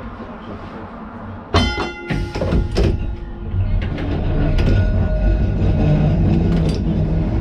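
Liverpool tram No.762 pulling away: about a second and a half in, a sharp metallic clang rings on briefly, followed by a few clicks as the controller handle is notched round, then the low rumble of the motors and wheels on the rails grows louder from about four seconds in.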